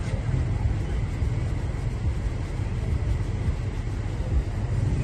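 Steady low rumble of roadside traffic, with no distinct taps or slaps standing out.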